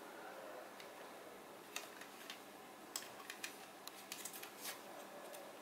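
Faint, scattered small clicks and taps of a plastic Bandai 1/72 B-wing Starfighter model kit being handled and turned in the hands.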